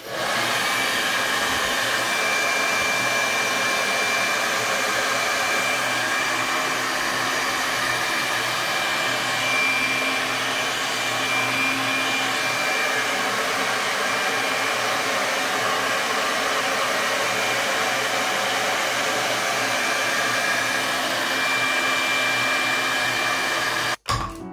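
Handheld hair dryer running steadily, blowing air with a thin high whine over the rush. It switches off abruptly near the end.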